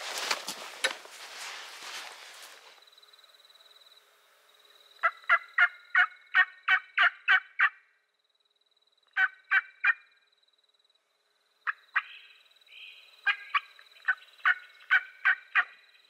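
Rustling footsteps through brush at first, then turkey hen yelps from a hunter's turkey call: three runs of sharp, evenly spaced notes, about four a second, loud and close.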